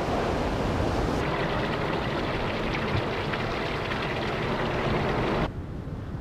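Seawater rushing and splashing: waves washing up against a groyne and a stream of water pouring through a gap in its rusted steel sheet piling, a steady loud rush that drops away sharply near the end.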